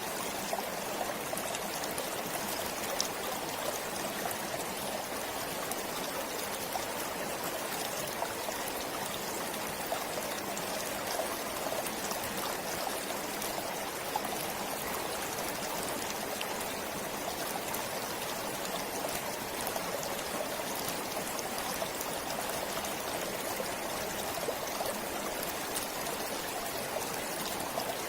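Forest stream flowing steadily, its water running and trickling with many small splashing ticks.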